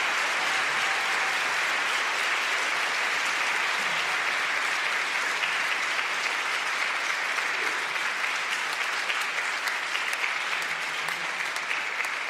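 An audience applauding steadily, with single claps standing out near the end as the applause starts to thin.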